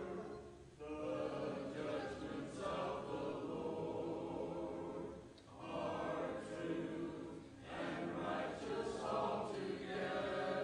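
Congregation singing a hymn a cappella, the words 'The judgments of the Lord are true, and righteous altogether'. Brief breaks between phrases come about a second in and again about halfway.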